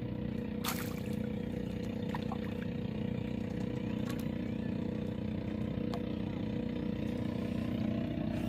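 Small boat engine running steadily at idle, with a few short sharp clicks, the clearest about a second in.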